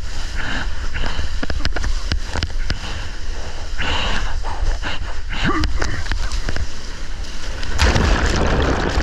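Wind buffeting and rushing, splashing water on a surfboard-mounted action camera while the board rides through whitewater. About eight seconds in comes a loud splashing rush as the camera goes under the water.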